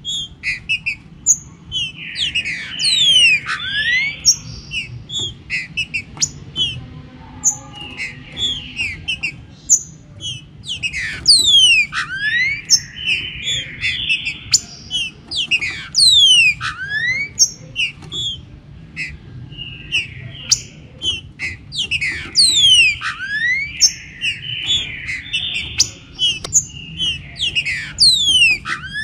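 Green-winged saltator (trinca-ferro, Saltator similis) singing. It repeats phrases of quick downward-sweeping whistles mixed with harsher notes, about one phrase every five seconds, over a low steady rumble.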